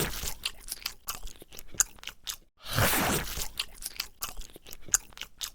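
Rapid crunching and clicking, like something hard being bitten or chewed, with a longer scratchy stretch at the start and another about three seconds in.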